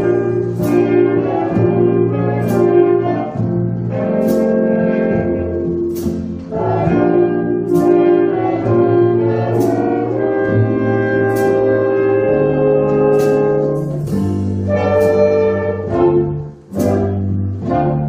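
Big band playing a slow passage: trombones with mutes, trumpets and saxophones hold sustained chords over double bass and guitar. A cymbal stroke marks a slow beat, about one a second.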